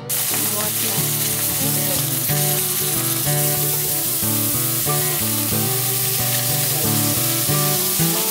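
Small whole fish frying in hot oil in a wok, a steady sizzle that starts abruptly. Soft background music plays underneath.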